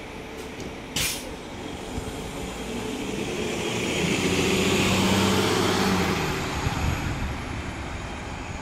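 2014 Nova Bus LFS city bus pulling away from a stop: a short hiss of air about a second in as the brakes release, then its Cummins ISL9 inline-six diesel grows louder as the bus accelerates past and fades as it drives off.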